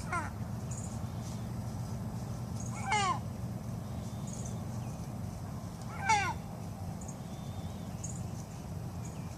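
Cuckoo Marans hen in a sneezing fit: three short, squeaky sneezes, each falling sharply in pitch, about three seconds apart.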